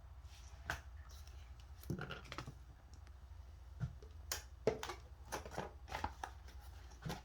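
Scattered light clicks, taps and rustles of hands handling the parts of a disassembled LiFePO4 battery pack, coming thicker in the second half, over a low steady hum.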